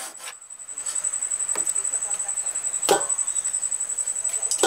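Large knife chopping through grilled chicken legs onto a wooden cutting board: a light chop and then a sharper, louder one about three seconds in. A steady high-pitched trill runs underneath.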